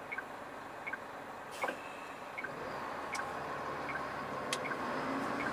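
Truck's turn-signal indicator ticking in the cab, a tick-tock pair about every three-quarters of a second, over the low hum of the idling engine while the truck waits to turn.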